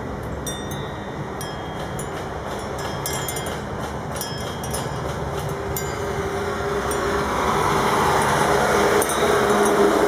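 Street traffic noise, with a vehicle's engine drawing closer and growing louder about two-thirds of the way in.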